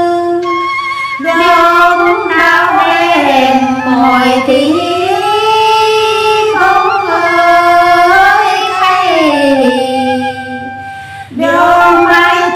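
Two women singing a Tày phong sư folk song, in long held notes that slide up and down. The voices drop away briefly near the end, then come back in.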